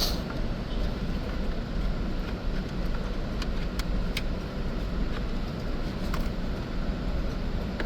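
Steady low rumble of a car, with a few light clicks from the antenna being handled and tucked into the dashboard plastic.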